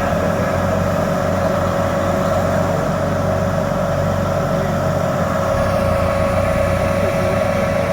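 Steady car cabin noise from inside a running car: a low engine and road rumble with a constant mid-pitched hum, unchanging throughout.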